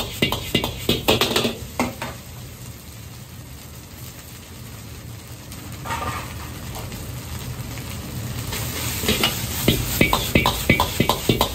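Metal ladle clanking and scraping rapidly against a steel wok as egg fried rice is stir-fried and tossed, with the rice sizzling. The clatter stops for a few seconds in the middle, leaving a quieter steady sizzle, and starts again near the end.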